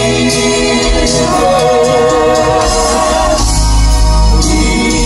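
Male southern gospel quartet singing live in close four-part harmony through microphones and a PA, with long held notes, vibrato and a deep bass voice underneath, to piano accompaniment.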